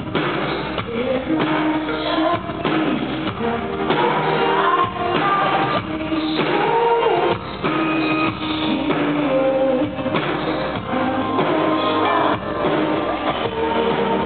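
Live band music with a woman singing lead over keyboards, guitar and a steady drum beat, recorded from the audience.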